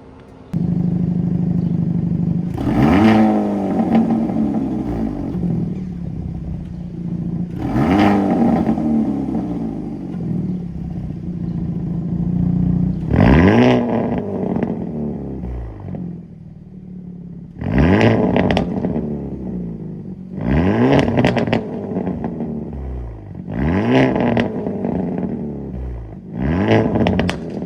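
Hyundai Elantra N's 2.0-litre turbocharged four-cylinder engine idling through a resonator-deleted exhaust, blipped about seven times. On each blip the pitch rises quickly and then falls back to idle.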